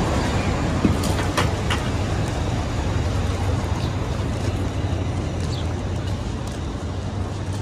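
Steady city street traffic noise from passing vehicles, a low rumble that eases off slightly, with a couple of short sharp clicks a little over a second in.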